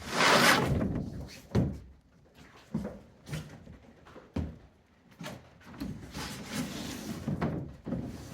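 A loud scraping rush at the start, then a series of separate knocks and thuds, and a longer stretch of scraping with more knocks near the end.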